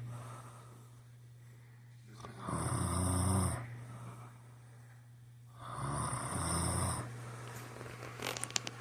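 A sleeping man snoring, two separate snores about three seconds apart, each a low buzzing rattle about a second long, over a steady low hum. A few sharp clicks come near the end.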